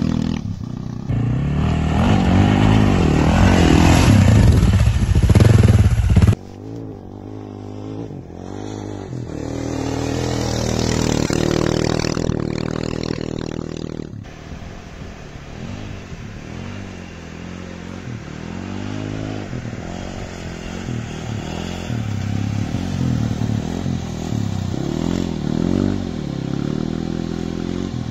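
AJP PR7 dual-sport motorcycle ridden hard on dirt and sand, its engine revving up and down as the rider works the throttle and gears. It is loud in the first six seconds, then cuts off abruptly and goes on quieter and farther off.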